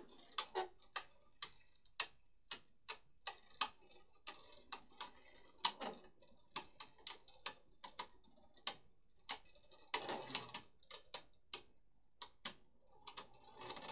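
Two Beyblade Burst tops, Noctimus in smash mode and Garuda, spinning in a Hasbro Battle Tower plastic stadium and clashing against each other and the stadium: sharp plastic clicks at an irregular pace of about two a second, with a quick flurry about ten seconds in.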